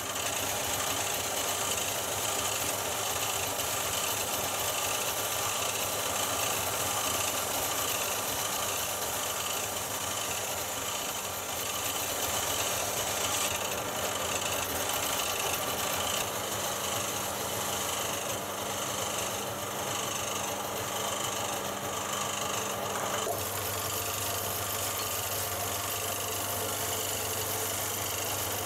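Wood lathe running steadily, spinning a long, thin maple spindle, with the hiss of a hand-held wooden rounding plane shaving the spinning stick.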